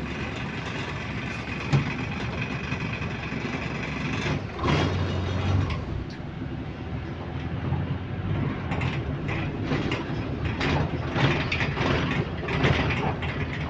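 Bus cabin noise on the move: a steady low engine and drivetrain rumble, with the body and fittings rattling. The rattles grow busier in the second half.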